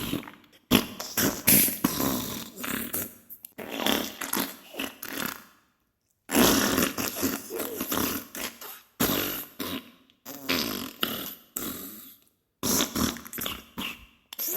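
Diarrhea sound effect: a string of fart noises in bursts of one to several seconds, broken by brief silences about half a second in, around six seconds in and near twelve seconds.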